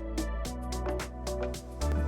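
Background music with a steady beat, a bass line and plucked or keyboard-like melody notes.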